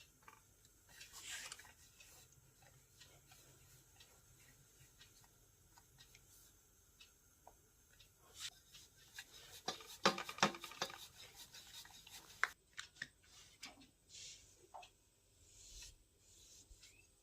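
Quiet rubbing and handling sounds, with a dense cluster of small clicks and taps about ten seconds in.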